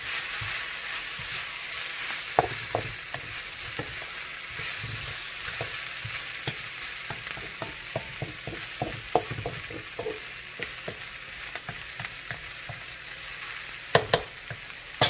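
Pork spare ribs sautéing with onions, garlic and ginger, sizzling steadily in the pan while they are stirred, the utensil clicking and scraping against the pan many times. Two louder knocks come near the end.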